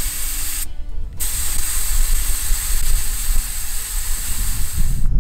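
Air hissing out of an off-road truck's tire through a handheld tire deflator on the valve stem, airing the tire down toward about 21 psi. The steady hiss cuts out for about half a second near one second in, then resumes.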